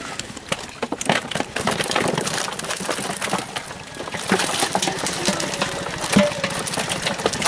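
Fish poured from a metal pot into a plastic crate, flapping and slapping against the plastic, the metal and each other in a rapid, uneven patter of wet slaps and knocks.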